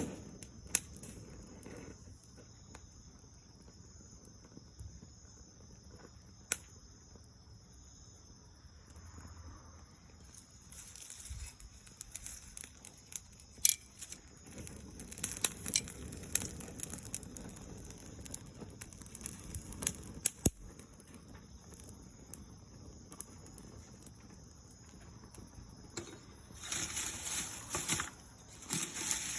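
Small open fire of dried soyogo (Ilex pedunculosa) leaves and twigs burning, with scattered sharp pops and irregular crackling. A louder stretch of crackling and rustling comes near the end.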